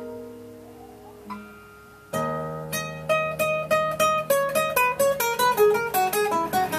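Nylon-string classical guitar played solo: a chord rings out and fades for about two seconds, then a low bass note starts a quick run of single plucked notes that speeds up toward the end.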